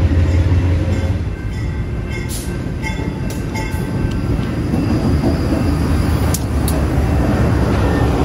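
GE B23-7 diesel locomotive's 12-cylinder engine rumbling as it pulls past at close range, with tank cars rolling by behind it. A heavy low rumble comes first, then the steady rolling of the cars, with scattered sharp clanks.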